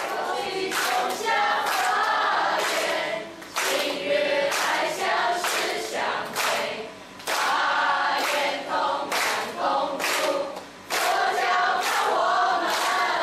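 A group of men and women singing together, clapping their hands along to the beat. The singing breaks off briefly three times between phrases.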